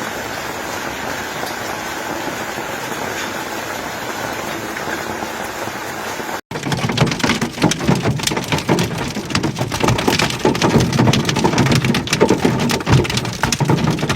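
Heavy rain pouring with a steady hiss. About six and a half seconds in it cuts abruptly to a louder, denser drumming of rain pelting a hard surface in rapid, irregular hits.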